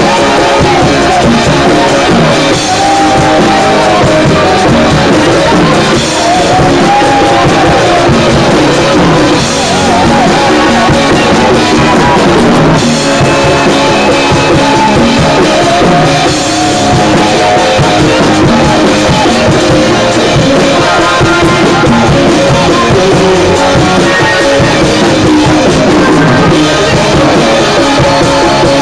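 Loud live worship music: an electronic keyboard with drums, and voices singing over it.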